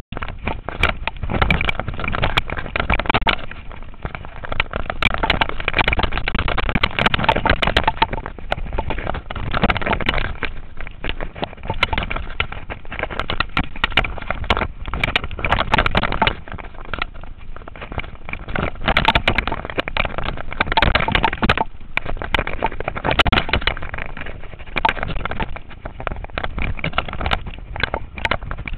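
Mountain bike clattering down a rough dirt singletrack: the frame, chain and tyres jolting over stones and roots, with many sharp knocks, under a constant rushing of wind on the microphone.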